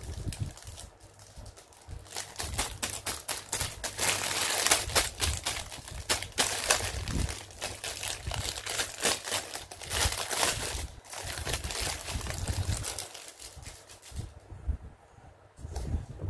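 Thin clear plastic bag crinkling and crackling as a doll is handled and pulled out of it. The crackling is densest in the middle and dies down near the end.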